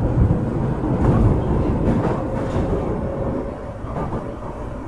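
Cabin running sound of an Osaka Metro 23 series subway car, refurbished with Hitachi IGBT inverter drive. The wheels rumble on the rails, with a faint clickety-clack. It gets quieter over the last second or so.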